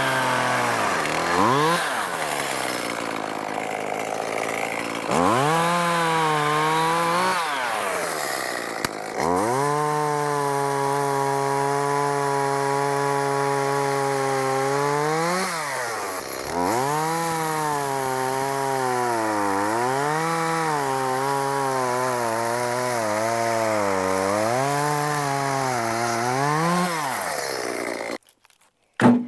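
Echo two-stroke chainsaw running hard through a cut, its pitch sagging and climbing again several times as the throttle is let off and squeezed and the chain bites into the oak. The sound stops abruptly near the end.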